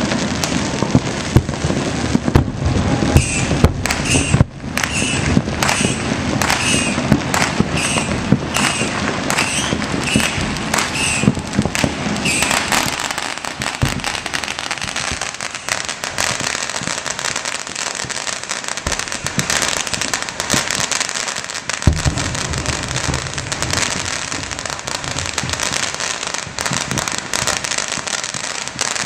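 Firecrackers and fireworks going off all over the city in a dense, continuous crackle of pops and bangs. For the first twelve seconds or so a regular run of sharper reports stands out, about two a second.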